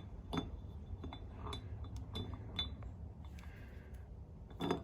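Small metal engine parts, the rocker arms and their pin, clinking and tapping lightly as they are handled and fitted into the cylinder head. Several separate clinks come at irregular intervals, some with a faint ring, the loudest near the end.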